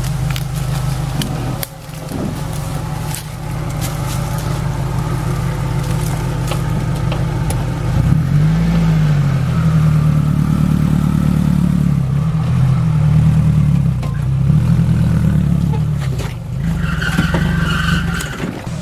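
Mitsubishi L300 4x4 van's 2.4-litre 16-valve petrol engine working under load as the van crawls backward up over rocks. The revs rise and fall repeatedly from about eight seconds in, with scattered knocks and scrapes of the tyres on rock and a brief squeal near the end.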